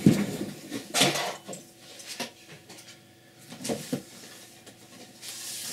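Hard objects being handled on a table: a few scattered knocks and clatters, a pair near the four-second mark, and a short rustling hiss near the end.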